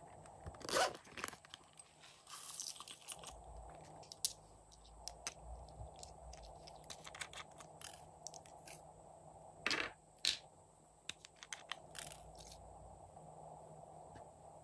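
Hands handling small plastic and glass craft items, among them a small glass vial of sequins being opened and tipped out: a string of light clicks and taps with a few short scraping rustles, the loudest near the start and around ten seconds in.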